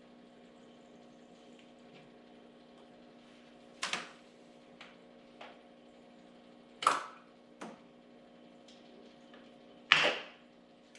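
Rubber suction cups being pulled off aquarium glass: a few sharp clicks, the loudest near the end, over a steady low hum.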